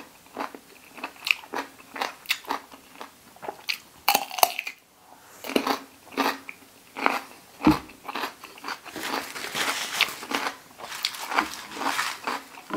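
Close-up crunching and chewing of crisp food, mainly bites of raw cucumber: a quick string of crunches and wet mouth clicks.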